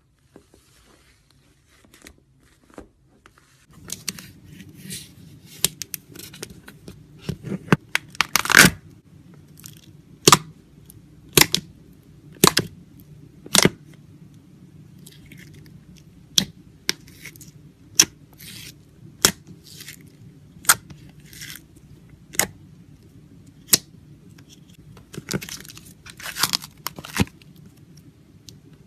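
Slime being pressed and stretched by hand, giving sharp pops about once a second between stretches of crackly, sticky rustling.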